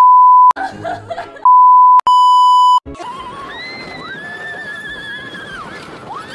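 A loud steady censor beep, broken by a short shriek of laughter and then a TV colour-bar test tone. After that comes a woman's long high-pitched scream on a fast amusement-park ride, rising, wavering, dipping and rising again over rushing wind.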